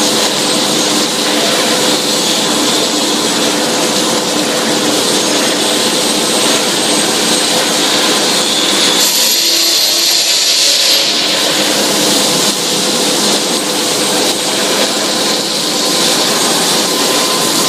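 Steel tube mill line with its high-frequency induction welder running: a loud, steady machine roar with a few constant hums. About nine seconds in it turns hissier for a couple of seconds, then settles back.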